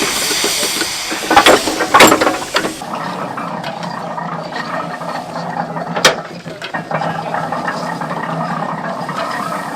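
Steam hissing from the 1910 Burrell traction engine with two loud knocks, then, about three seconds in, the hiss stops and a steady mechanical clatter of gears and ratcheting from the 1936 Case hay baler's working mechanism takes over, with one sharp clack about six seconds in.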